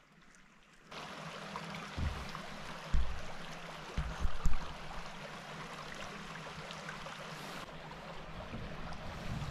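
A steady rushing noise that sets in abruptly about a second in, with a few heavy low thumps around two, three and four seconds in.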